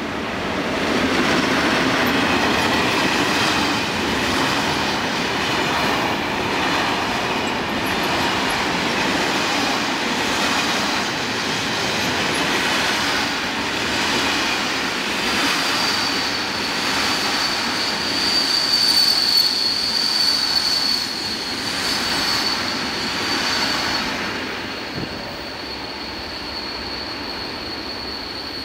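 Freight train hauled by an electric locomotive passing close at speed, its long string of covered wagons rumbling and clattering over the rails. From about halfway a high steady whine sits over the noise and lingers after the train dies away, about 25 s in.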